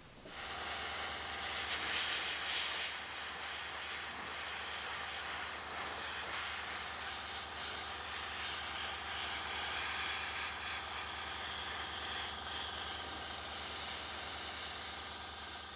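Airbrush spraying paint onto a galvanized-sheet spoon lure: a steady hiss of air and paint that starts about a third of a second in, with a steady low hum beneath it.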